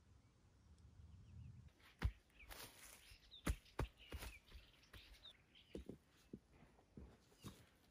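Irregular soft knocks, clicks and scrapes of hands digging in loose soil and shifting stones, with faint bird chirps behind.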